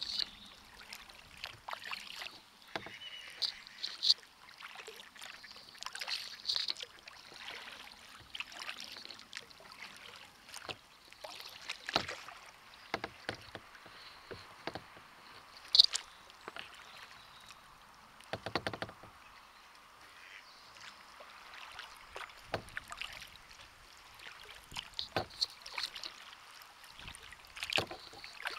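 Kayak paddling: double-bladed paddle strokes splashing into the river and water dripping off the blades in an uneven rhythm, with a few sharp clicks, the loudest a little past halfway.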